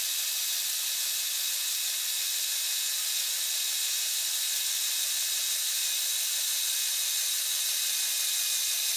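LEGO Power Functions M motor driving the Unimog's winch through its gearing: a steady high whir as the winch reels in its string under load.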